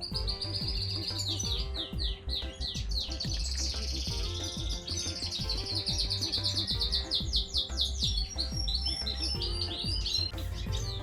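Small birds chirping and trilling in quick, dense runs of high notes, over background music with a steady low beat.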